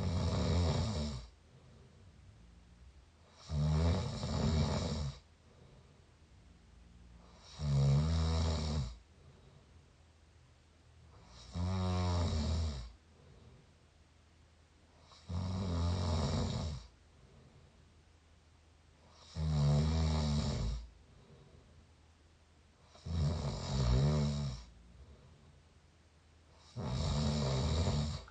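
A person mouth snoring, recorded up close: eight snores in a steady rhythm, about one every four seconds, each lasting around a second and a half, with quiet gaps between them.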